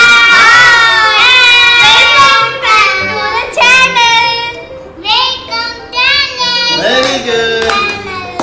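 A child's high voice singing a tune with music, the notes held and wavering.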